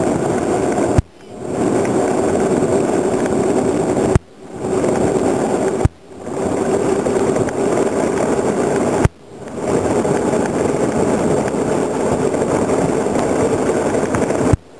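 Rolling noise of a wooden soapbox cart's wheels running fast down wet asphalt, heard from on board as a steady rumbling hiss. It is broken five times by a sharp knock, each followed by a sudden dip in the sound before the rumble swells back.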